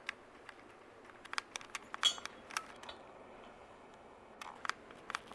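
Harbor Breeze Troches ceiling fan running and clicking: irregular sharp clicks, several a second, with a short lull about halfway through.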